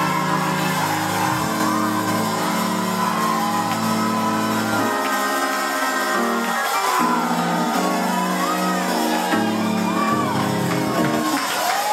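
Church praise-break music: sustained chords held and changed every second or two, with voices shouting and whooping over them.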